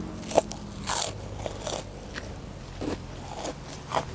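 A person biting and chewing a crisp fried kerupuk cracker close to the microphone: a string of sharp crunches, about eight in four seconds.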